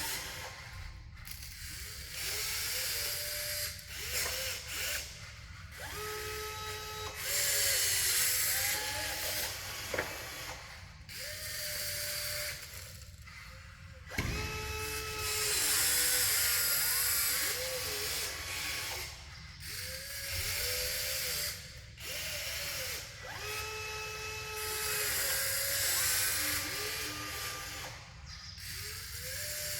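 Electric motors and gearboxes of radio-controlled model construction machines whining as they work. The whine starts and stops repeatedly and jumps between steady pitches as the motors change speed, over stretches of gritty hiss.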